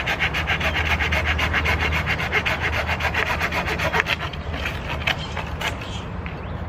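A short folding hand saw cutting through a piece of wood with rapid back-and-forth strokes, the teeth rasping on the wood. About four seconds in the sawing stops, leaving a few scattered light knocks and rustles.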